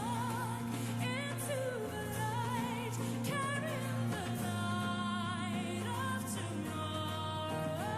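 A woman's voice singing long notes with wide vibrato over a symphony orchestra holding sustained chords.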